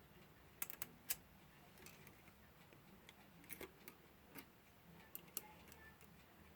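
Faint, irregular small clicks and taps as the parts of a clock movement are handled with tweezers during reassembly: a quick cluster of three about half a second in, then a few scattered single clicks later on.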